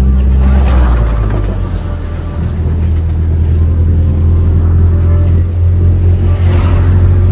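Engine drone and road noise from a vehicle riding along a road. The engine note shifts lower about a second in, and there is a brief rush of noise a little before the end.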